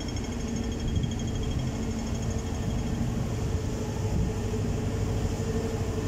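Steady city street noise: a low rumble with a constant hum.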